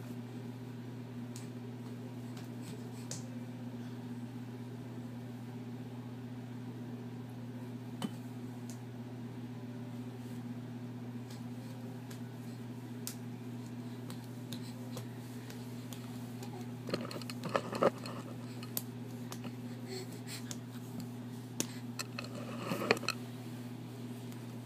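Steady low mechanical hum, like a household fan running, with a few soft taps and rustles close by in the second half as a baby crawls up on the hard floor.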